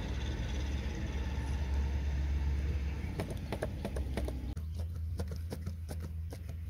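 Homemade plastic-spool line reel turning on its stakes, giving irregular clicks as line pays out. The clicks start about three seconds in and come faster near the end, over a steady low rumble.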